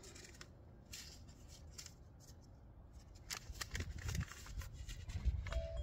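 Paper seed packet torn open and handled, a scatter of small crackles and rustles. Wind buffets the microphone in the second half, and a wind chime starts ringing a steady note near the end.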